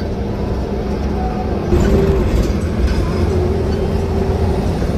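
Hino AK8 bus's diesel engine running under way with road noise, heard from inside the cabin; it gets louder about two seconds in.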